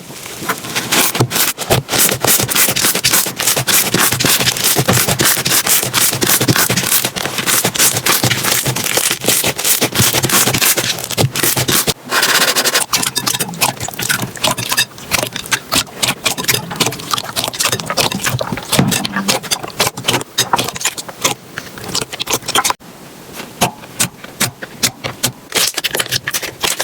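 Slime being squeezed and pressed by hand, giving a dense run of crackles and pops. The sound breaks off briefly about 12 seconds in and again about 23 seconds in, and the clicks come sparser and quieter after the second break.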